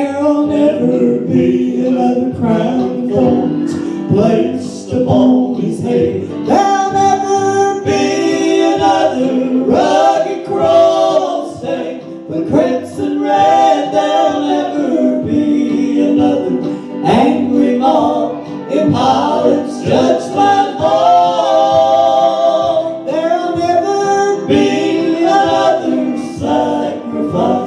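Gospel song sung by a group of voices, a choir-like chorus.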